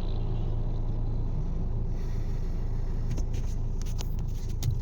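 A vehicle engine idling steadily with a low, even hum, with a few faint clicks in the second half.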